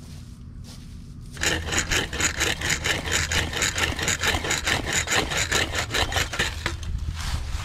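Rapid, rasping scraping and rubbing close up, as hands work among brushy branches and chain-link fence wire. It starts about a second and a half in and goes on for several seconds as a dense run of quick strokes.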